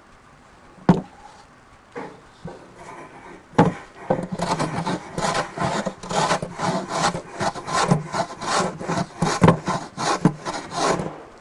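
Wood being worked by hand, scraped back and forth in quick even strokes at about three a second, as the cut edge of the lid is evened up. Two sharp wooden knocks come first.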